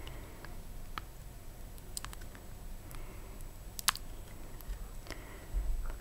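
Fingernails clicking and squeezing on a silicone pimple-popping pad. There are a few sharp separate clicks, the loudest about four seconds in, and a low rumble of handling near the end.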